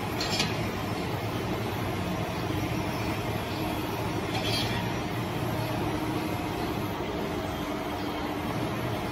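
Steady mechanical rumble of factory workshop machinery, with two short hissing sounds, one near the start and one about halfway.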